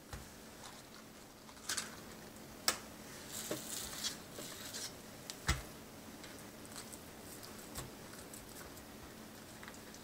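Hands working ground meat filling and a soft cooked cabbage leaf on a countertop to roll a stuffed cabbage roll: quiet squishing, patting and leaf crinkles, with a few sharp taps, two of them louder, between about 2 and 6 seconds in.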